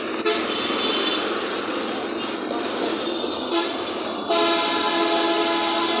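Road traffic with engines running and a vehicle horn honking: a short honk near the start and a long, loud honk from about four seconds in.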